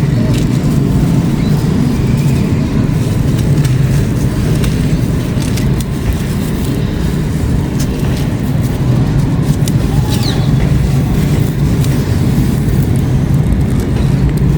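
Grey concrete being crumbled: a dense, continuous crunching rumble with a few faint sharper crackles.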